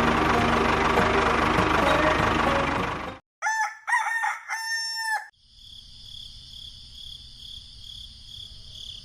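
A dense, busy sound cuts off about three seconds in, and a rooster crows once. After the crow comes a steady high-pitched buzz.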